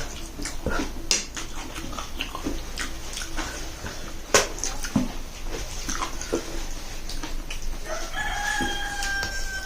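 Scattered light clicks and clinks of eating from bowls, then about eight seconds in a rooster crows with one long, slightly falling call.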